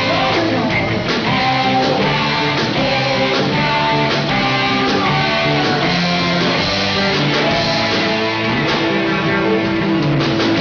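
Live rock band playing: electric guitars over drums, with a melody line that bends up and down in pitch.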